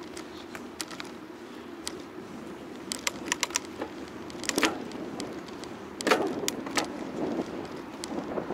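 Bicycle in motion rattling: a steady low hum with a scatter of sharp clicks and knocks, bunched about three seconds in and again around six seconds.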